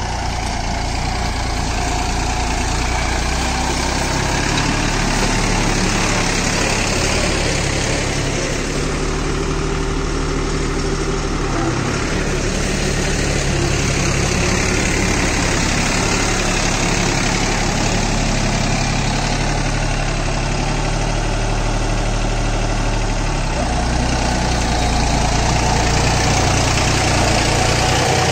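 Deutz-Fahr Agromaxx 4055E tractor's diesel engine running steadily while pulling a rigid cultivator through dry soil. The engine note shifts several times: about four seconds in, again around twelve seconds, and near the end.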